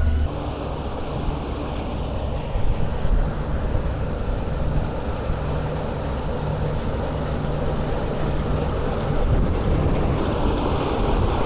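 Heavy harvest machinery running with a steady engine drone.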